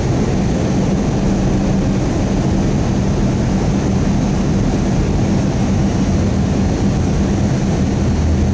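Airbus A320 cabin noise on the approach to landing: the steady rush of the engines and the airflow, with a constant low hum. A deeper hum joins in near the end.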